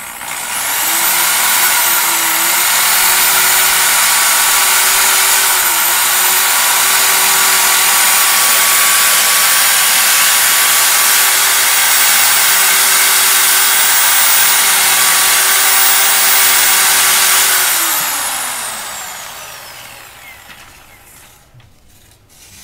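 Bosch corded electric drill running at a steady speed while a kitchen knife blade is held against its spinning chuck to sharpen the edge: a loud steady motor whine with a grinding metal hiss. About seventeen seconds in the drill is switched off and the motor winds down, its pitch falling.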